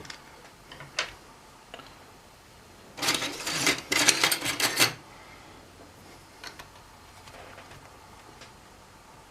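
Plastic and metal clicks and knocks from a laptop being handled and worked open on the bench: a few single clicks, then a rapid clatter lasting about two seconds, about three seconds in.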